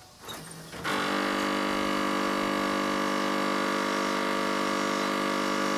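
1997 Pontiac Firebird pop-up headlight motor giving its grinding 'brrr' as a loud, steady buzz that starts about a second in and holds an even pitch throughout: the sign of a broken headlight motor that needs a new gear.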